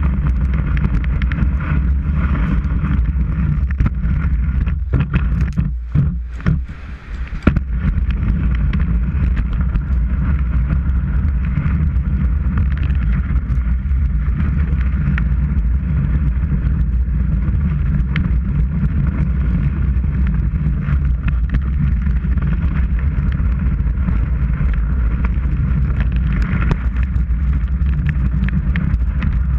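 Skis running over packed snow, heard as a steady low rumble and hiss with wind buffeting, picked up through a camera mounted on the ski boot. The rumble briefly drops away and thins about five seconds in, then comes back.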